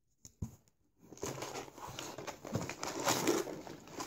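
Packaging rustling and crinkling as hands rummage in a cardboard shipping box, after a couple of light taps near the start.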